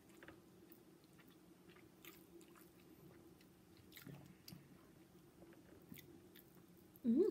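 Quiet chewing of chicken adobo eaten by hand, with faint scattered clicks and smacks over a low steady hum; a short vocal sound comes just before the end.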